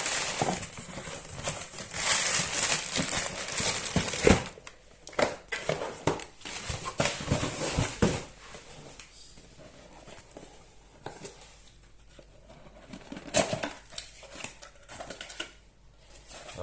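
Packaging rustling and crinkling as a new drain pump is unwrapped, with scattered knocks and clicks from handling; busiest in the first half, quieter after that.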